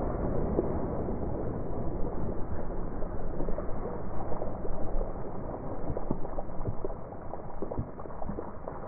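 A wounded duck thrashing and splashing on the lake surface, a run of short splashes over steady wind and reed noise.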